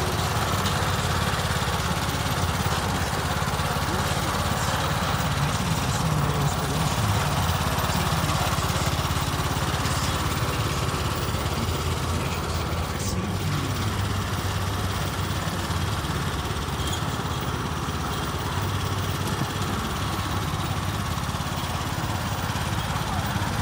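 Small engine of a zero-turn riding lawn mower running steadily as it drives across a lawn, towing a cart.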